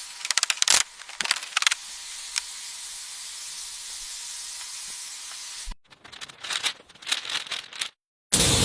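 A few sharp clicks and taps, then a steady spraying hiss for about four seconds that cuts off suddenly, followed by more scattered clicks.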